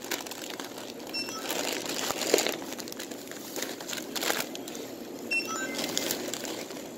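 Plastic snack bags crinkling and rustling as they are handled on a steel checkout counter, with scattered light knocks and a few short electronic beeps about a second in and again between five and six seconds.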